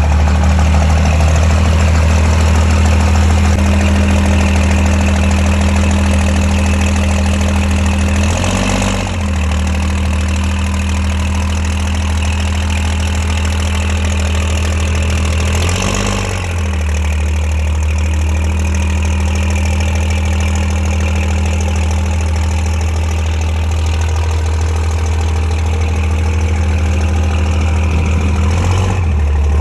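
Vehicle engine idling steadily with a deep, even drone that wavers briefly three times.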